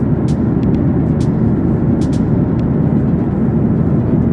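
Steady low roar of airliner cabin noise in cruise, heard at a window seat, with a few faint ticks.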